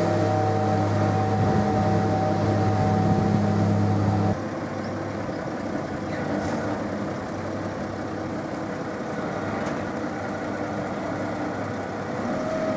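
Heavy diesel engines running. First a truck engine hums steadily. After an abrupt cut about four seconds in, a large forklift's engine runs more roughly while it handles concrete culvert sections, and it rises in pitch near the end as it revs.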